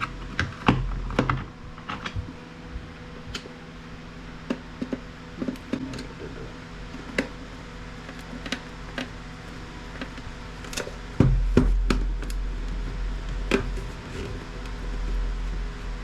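Scattered clicks and knocks of hand tools and a plastic device case being handled on a workbench, with a louder knock about eleven seconds in followed by a low rumble, over a steady background hum.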